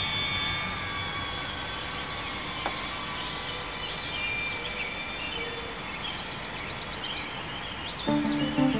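Outdoor park ambience: a steady high whine from the FPV drone's motors, with scattered bird chirps over a faint noise bed. Background music comes in about eight seconds in and is louder than the rest.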